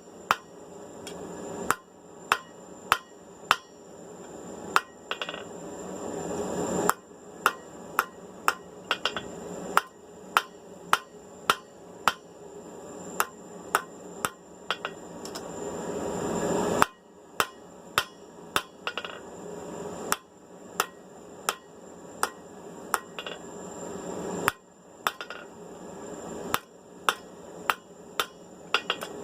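Hand hammer striking hot steel on an anvil in a steady run of blows, about one to two a second, with a few short pauses: the bits of a set of tongs being drawn out to a taper, the piece turned up on its edge now and then to keep it cleaned up.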